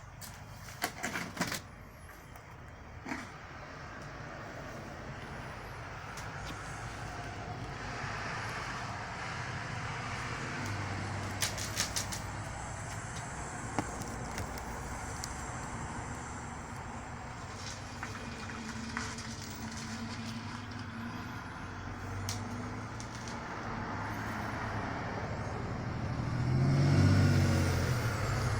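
Steady outdoor road-vehicle rumble, with a few light clicks. Near the end a louder low rumble swells and fades, like a vehicle passing close by.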